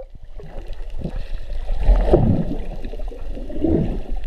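Underwater sound heard through an action camera's housing: muffled gurgling and bubbling water over a low rumble, swelling louder about two seconds in and again near the end.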